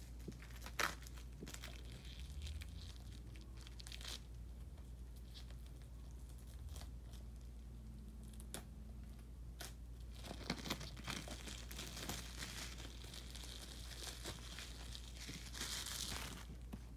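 Plastic wrapping being torn and peeled off a DVD case: faint scattered crinkles and tearing with a sharp click about a second in, growing into a denser stretch of crinkling in the second half.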